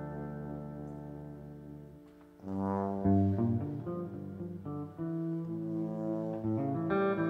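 Live band music: a held chord fades away over the first two seconds, then about two and a half seconds in the band comes back in louder, with tuba and guitar.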